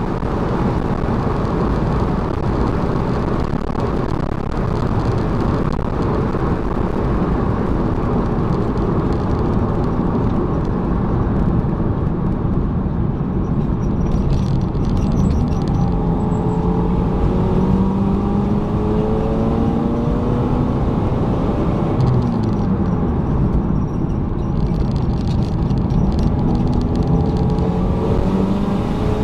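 1993 Honda Civic hatchback driving, with steady loud road and wind noise. In the second half the engine note comes through and climbs slowly as it accelerates, drops briefly a little past the middle, then climbs again.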